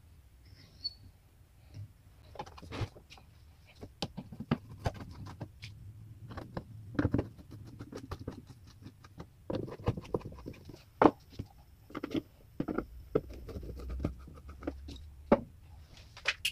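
Hand screwdriver turning screws into the back panel of a speaker cabinet: irregular clicks, scrapes and light knocks.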